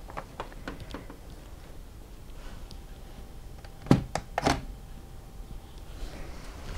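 Buttons on a reversing-camera monitor being pressed with a finger: a few light clicks, then three sharper taps close together about four seconds in.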